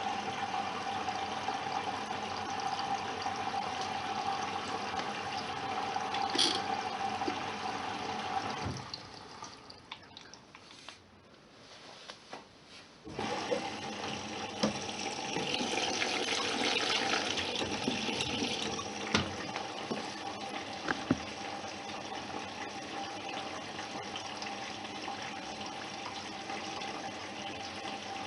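Bosch Serie 6 front-loading washing machine filling with water: a steady rush of water running in with a faint steady hum. The flow stops for a few seconds about a third of the way through, then starts again.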